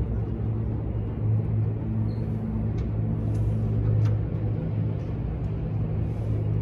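Single-engine floatplane's propeller engine giving a steady, low drone as the plane climbs away just after takeoff.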